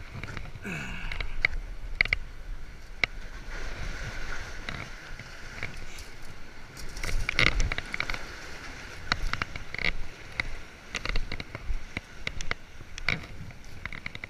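Shoes scuffing and tapping on the breakwall's stone blocks and concrete as a hiker climbs over them, giving irregular sharp clicks, over the wash of lake waves against the rocks.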